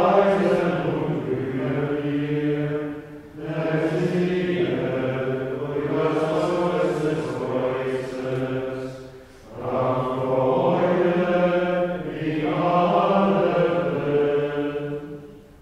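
Plainchant of the Good Friday Tenebrae office, sung by men on a single melodic line in long phrases, with short breaks about three seconds and about nine and a half seconds in, trailing off near the end.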